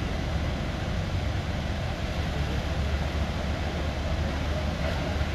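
Steady rush of muddy floodwater pouring over a concrete wall into a flooded channel, with a deep rumble underneath.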